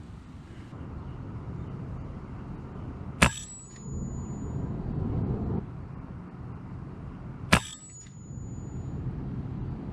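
Two shots from an RTI Priest2 PCP air rifle, about four seconds apart, each a sharp crack followed by a brief high ring. Wind rumbles on the microphone throughout.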